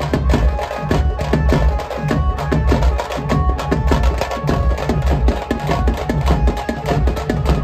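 Loud festival music: fast, dense drumming over a heavy pulsing bass, with a melody line on top.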